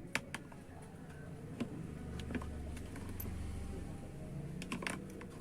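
Scattered small clicks and taps from a 30-in-1 magnetic screwdriver repair kit being handled, a few isolated ones and then a quick cluster near the end, over a low steady hum.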